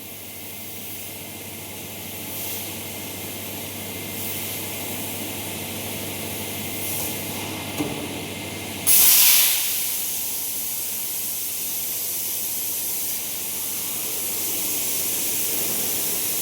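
CNC plate-cutting machine's torch hissing steadily as it cuts through metal plate. There is a short click about eight seconds in, then a sudden, much louder burst of hiss that fades within a second.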